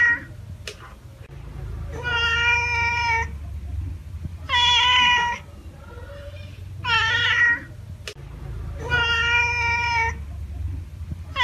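Domestic cat meowing: four drawn-out meows about two seconds apart, over a steady low rumble.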